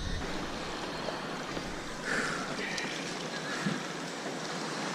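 Steady noise of sea water washing around a kayak, mixed with wind on the microphone; a faint brief sound comes about two seconds in.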